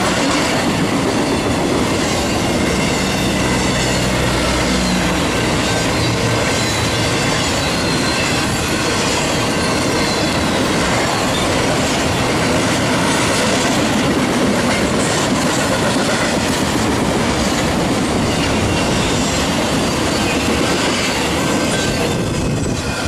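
Intermodal freight cars carrying trailers and containers rolling past close by: a steady, loud noise of steel wheels on the rails with faint high squealing. The noise starts to fall away right at the end as the last car passes.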